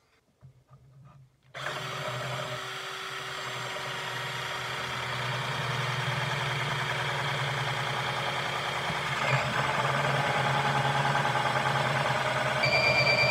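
Black+Decker 20V cordless drill boring into clamped plywood with a large bit: the motor starts about a second and a half in and runs steadily, growing slowly louder, with a higher whine joining near the end.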